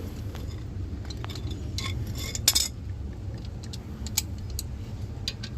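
Metal tools clinking and clicking against the brake caliper as a socket wrench with an extension is fitted and worked on a caliper bolt: scattered light clicks, with one louder clank about two and a half seconds in.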